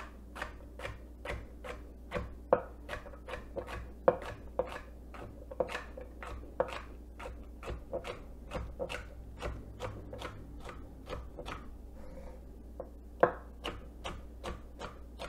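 Chef's knife chopping a celery stalk crosswise on a wooden cutting board: a steady series of crisp knocks as the blade cuts through and hits the board, about three a second, with a brief pause near the end before the chopping resumes.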